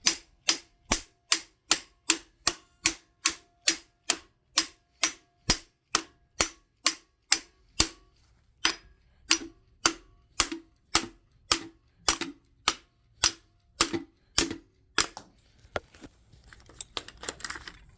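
Hammer blows on a seized distributor stuck in a Ford 351M V8 block, struck in a steady rapid rhythm of about two and a half blows a second with a slight metallic ring. The blows stop about 15 seconds in, followed by a few lighter knocks.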